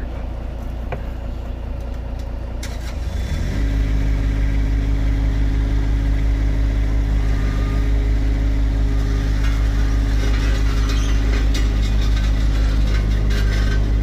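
Engine of the asphalt paving equipment running steadily, then speeding up to a higher, louder steady run about three and a half seconds in, with occasional sharp knocks.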